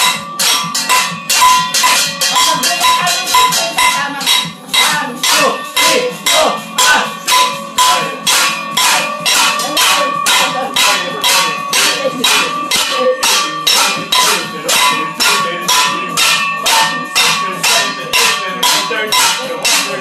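Stainless steel pots, pan lids and a colander being banged together and struck with metal utensils: a loud, rapid, steady clanging of about three strikes a second, with the metal ringing between hits.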